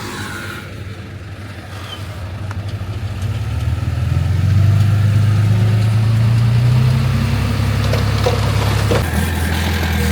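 Heavy diesel engine of earthmoving equipment running with a steady low hum. It grows louder over the first few seconds, holds strong, then eases slightly near the end.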